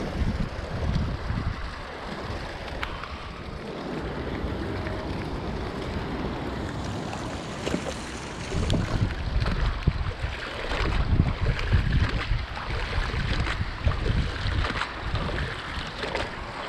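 Steady rain hissing on canal water, with wind buffeting the microphone in gusts that grow stronger about halfway through, and small knocks and rustles as a wet rope is hauled in by hand.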